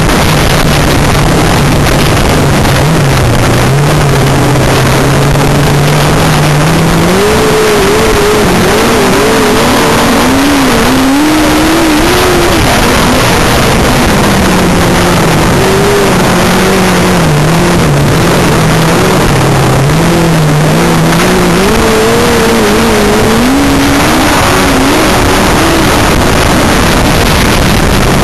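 Grasstrack racing sidecar engine at race pace, heard from onboard over a dense rushing of wind and track noise. The engine note climbs about a quarter of the way in, drops again around the middle, then climbs and falls once more near the end as the outfit laps the track.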